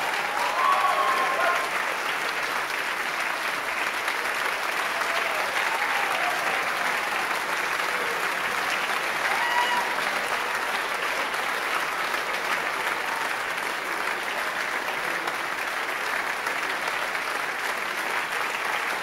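Sustained applause from a concert audience and the band. A few voices call out over the clapping about a second in and again around halfway through.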